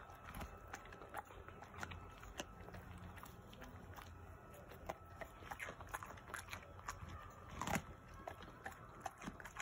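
Samoyed biting and chewing a piece of raw cucumber: faint, irregular crunches and wet clicks, with one louder crunch about three-quarters of the way through.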